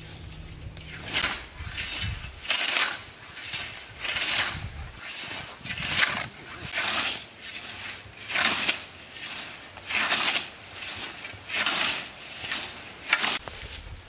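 Scythe blade swishing through long grass in steady mowing strokes, a little more than one stroke a second.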